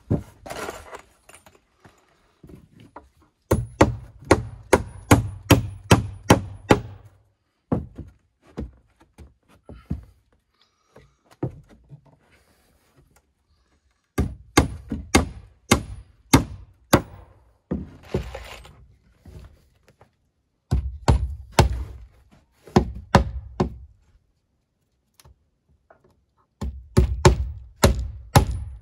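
Repeated sharp blows on wood, about three a second, in runs of roughly ten strokes with short pauses between runs.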